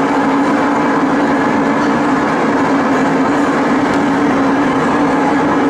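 Steady, even mechanical rumble with a constant low hum and a rushing noise over it, unchanging throughout.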